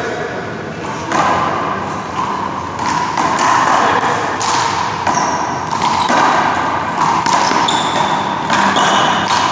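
Rubber handball repeatedly slapped by hand against the wall and bouncing off the court floor during a one-wall handball rally: a string of sharp smacks at uneven intervals. Short high sneaker squeaks come from the players moving on the court.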